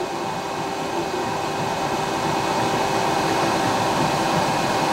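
Raise3D N1 FDM 3D printer running mid-print: a steady fan-like whir with faint humming tones as the hotend moves over the layer.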